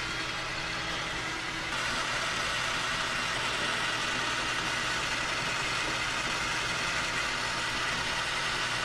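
Metal lathe running steadily under power, a constant machine hum and hiss with a faint steady whine.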